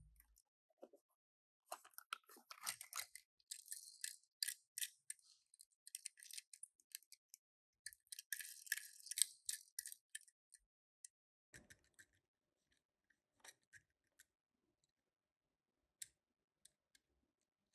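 Crinkling and crackling of toy packaging with small handling clicks, in two busy bursts of a few seconds each, then only occasional faint clicks.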